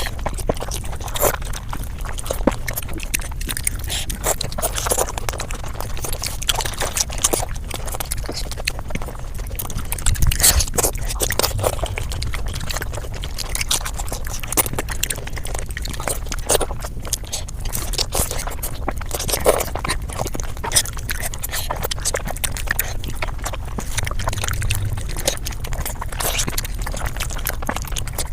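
Close-up eating sounds played at several times normal speed: chewing with a dense, unbroken run of short sharp clicks.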